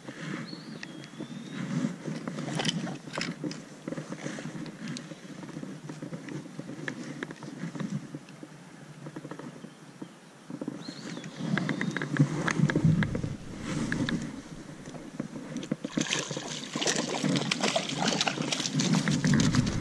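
Wind buffeting the microphone and handling noise while a hooked brook trout is played on a spinning rod, with scattered clicks and scrapes. Near the end a dense stretch of rustling and crackling as the angler moves down over brush and roots to the water.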